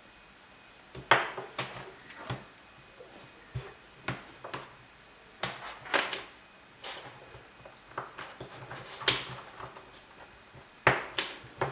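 A series of short, sharp clicks and knocks, more than a dozen at irregular intervals, starting about a second in, like small hard objects being handled or set down. The loudest come about a second in and near the end.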